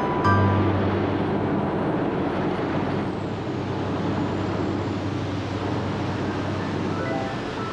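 Khlong Saen Saep canal express boat under way: its engine running with a steady rushing noise, and a low hum that sets in just after the start and slowly fades.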